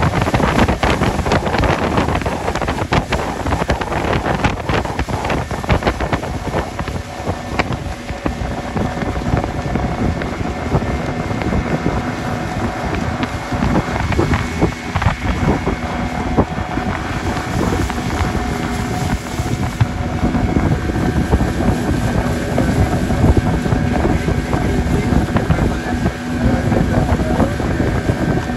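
Small motorboat's engine running steadily under way, with heavy wind noise on the microphone.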